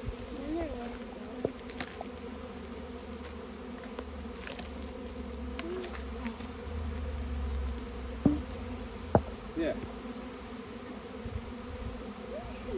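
A large swarm of honeybees in flight: a steady, dense buzzing hum, with single bees buzzing close past the microphone, their pitch bending up and down as they go by. Two sharp taps about a second apart, about two-thirds of the way in.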